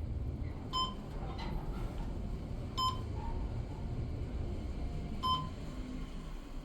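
Elevator's electronic beep sounding three times, about two to two and a half seconds apart, over the low rumble of the cab in travel: the signal for each floor the car passes on its way down.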